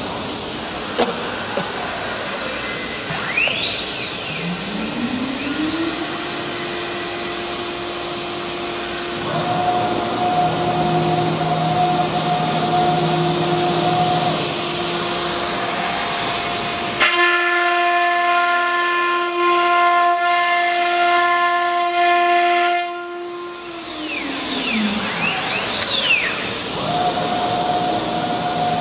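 CNC wood router spindle spinning up with a rising whine, then running at a steady high pitch over a steady hiss while the bit cuts shapes into a wooden panel. About 24 seconds in it winds down with a falling whine, and the steady tone picks up again near the end.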